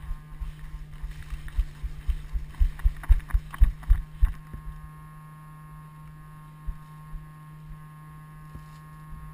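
Footsteps of a running player thudding through a body-worn camera, about two to three a second, stopping about four and a half seconds in, over a steady low hum.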